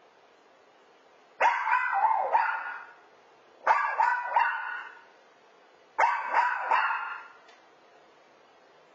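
Toy poodle barking after being left home alone: three bouts of high-pitched barks, a few barks each, coming about every two seconds and a half.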